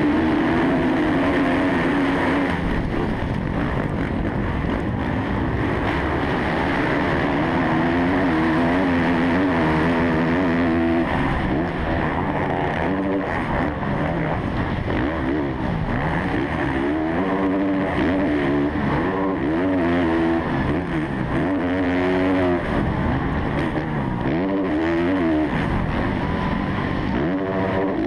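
Kawasaki KX450F single-cylinder four-stroke motocross engine at race pace, heard from onboard the bike, revving up and dropping back over and over as the rider shifts gears and rolls the throttle through the corners and jumps.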